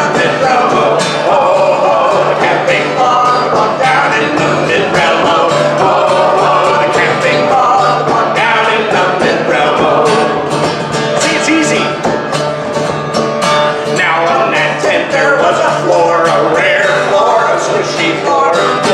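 Live folk singing with a steadily strummed acoustic guitar.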